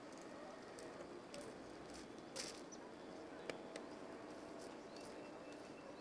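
Faint outdoor background: scattered sharp clicks, a few short high chirps and faint distant voices.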